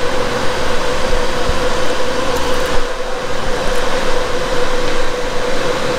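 Steady hum and rush of air from a running fan-driven blower, holding one constant tone.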